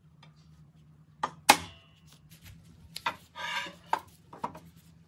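Small steel tools clinking and tapping on a steel lathe bed. The loudest clink, about a second and a half in, rings briefly. It is followed by a short scrape and a few lighter taps.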